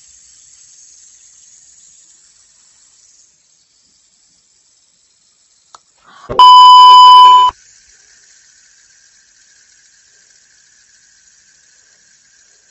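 A loud, steady electronic beep tone lasting just over a second, about six seconds in, cut in sharply at full level. Faint hiss comes before and after it, with a stretch of dead silence just before.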